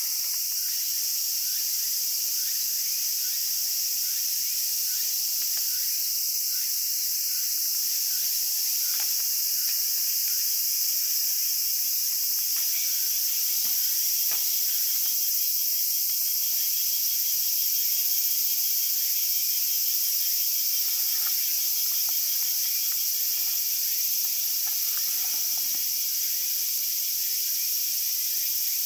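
A steady, dense, high-pitched chorus of cicadas that does not let up, with a few faint clicks underneath.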